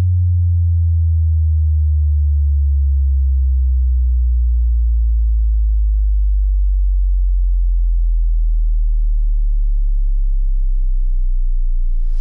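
Subwoofer bass test tone: a deep, pure, steady tone that glides slowly and smoothly down in pitch, ending very low.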